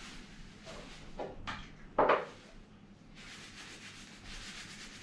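Cloth rubbing saddle oil into a wooden catapult frame: a steady soft scrubbing, broken by a few louder scuffs of handling, the loudest about two seconds in.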